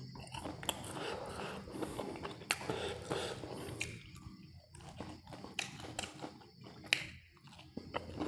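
Close-miked chewing of crispy fried popcorn chicken, with sharp crunches of the breaded coating scattered throughout.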